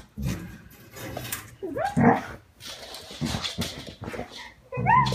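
Dog whining with short, high yelps, once about two seconds in and again near the end, with blanket rustling in between as it noses at a person under a blanket.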